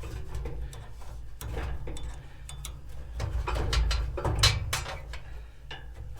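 Irregular metallic knocks and clanks from a gas grill's metal parts being handled and worked on, the loudest about four and a half seconds in, over a steady low rumble.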